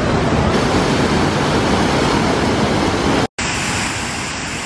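Steady loud rushing noise, cut off for a moment about three seconds in, after which a waterfall pouring over rocks and logs rushes on, slightly quieter.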